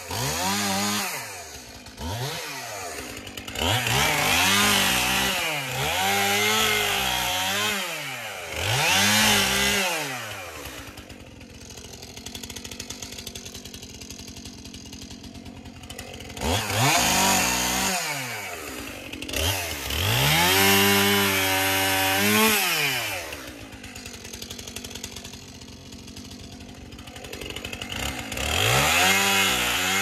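Two-stroke chainsaw revved up and back down again and again in bursts of one to three seconds, falling back to a steady idle between them, twice for several seconds.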